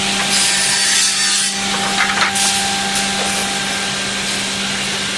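Woodmaster automatic double-end cutting and drilling machine running with a steady hum, its blades cutting through wood in a long pass about a second in and a shorter one around two seconds in.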